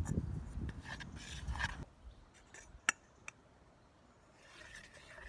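Metal fork scraping and stirring melted white chocolate against the sides of a small non-stick saucepan. There is a low rumble through the first two seconds and a sharp click about three seconds in.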